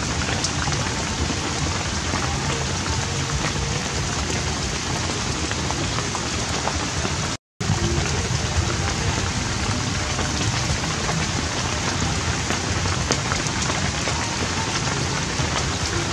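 Steady rain falling and dripping from a thatched roof onto a wet wooden floor, with a brief cut to silence about seven and a half seconds in.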